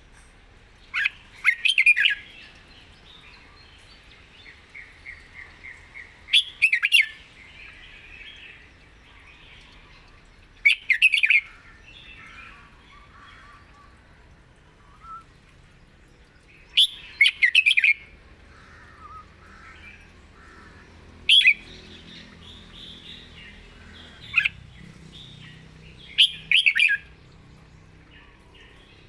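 Red-whiskered bulbul singing: short loud song phrases every few seconds, about seven in all, with softer chirping between them.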